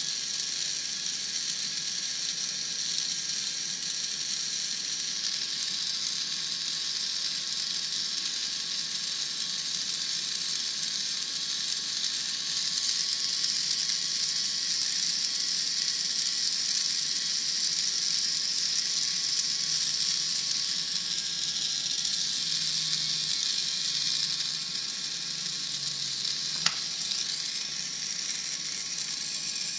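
Steady high hiss with a single sharp click near the end.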